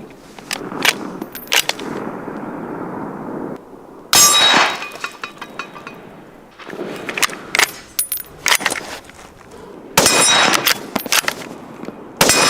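Metallic clanks and clicks, with sharp loud bangs that ring on briefly, about four and ten seconds in and again near the end.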